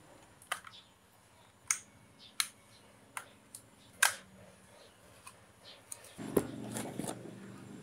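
Sharp plastic clicks, about five in the first four seconds, as a DJI Mavic Mini drone is handled and its folding arms are swung open. About six seconds in there is a thump, then a few seconds of handling and rubbing noise.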